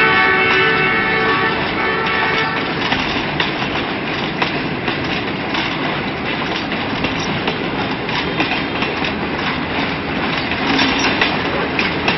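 Passenger train coaches rolling past at low speed, the wheels clattering and clicking over the rail joints. A long, held train horn note ends about two and a half seconds in.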